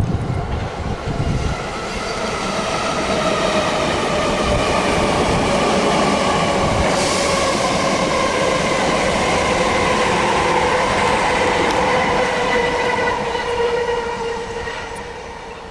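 South West Trains Class 455 electric multiple unit passing, its traction motors giving a steady whine of several tones that slowly fall in pitch, over the rumble of wheels on rail. There is a short hiss about seven seconds in, and the sound fades near the end as the train draws away.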